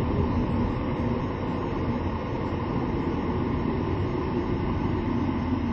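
A car running steadily, a continuous low rumble with no distinct knocks.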